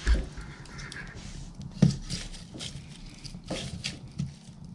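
A log being pushed into a burning wood stove: a few wooden knocks and scrapes against the firebox, loudest at the very start and about two seconds in, with scattered sharp clicks of the fire crackling.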